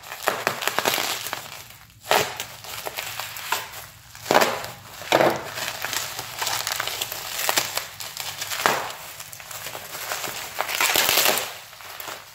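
Packing material being handled and pulled apart while a shipped box is unpacked by hand: irregular crinkling, crunching and scraping with no steady rhythm.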